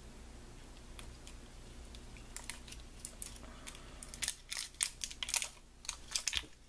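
Small plastic pigment jars from a paint kit being handled and set down: a run of light clicks and taps, sparse at first and coming in quicker clusters in the second half.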